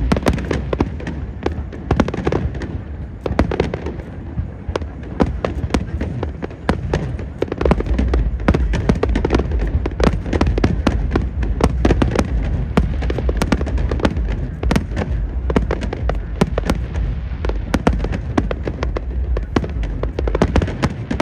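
Fireworks display going off without a break: a dense, rapid run of sharp cracks and bangs over a deep booming rumble, which grows heavier about a third of the way in.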